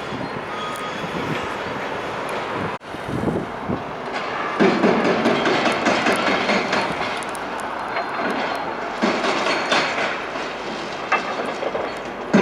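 Demolition machinery working on the building, a steady rattling, grinding clatter of heavy plant and rubble. It gets louder and rougher about four and a half seconds in, with scattered sharp knocks.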